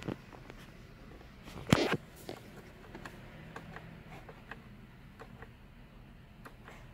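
Light plastic clicks of the button on a Mini's turn-signal stalk, pressed again and again to step through the instrument display for a service-reminder reset. One louder knock about two seconds in.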